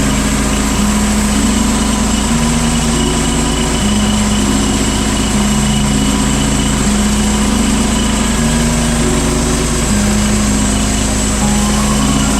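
The engine of a homemade band sawmill running steadily, with a simple tune of changing notes laid over it.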